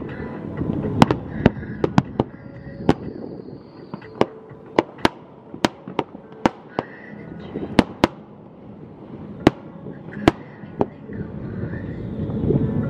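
Aerial fireworks bursting: about twenty sharp bangs at uneven intervals, sometimes several within a second.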